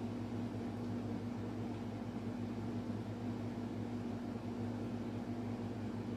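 A steady low hum with an even hiss behind it, like a fan or an electrical appliance running.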